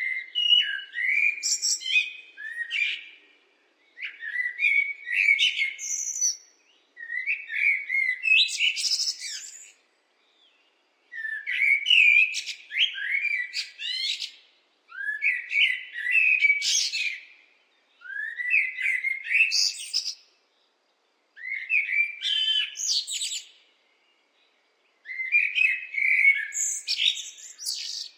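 Blackbird singing: a series of about eight short warbling phrases, each two to three seconds long and ending in higher, thinner notes, with pauses of about a second between them.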